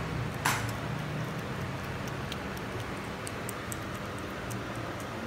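Two flat-faced (peke-face) cats licking and chewing at food, making small scattered clicks, with one sharper click about half a second in.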